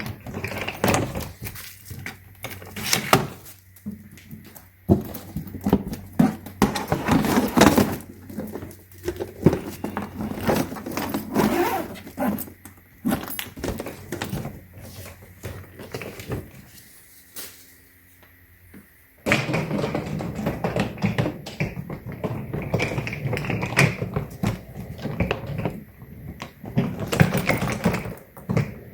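Handling noise from a plastic hardshell suitcase: irregular knocks, clicks and thunks, then a denser stretch of rubbing and rustling from about two-thirds of the way through.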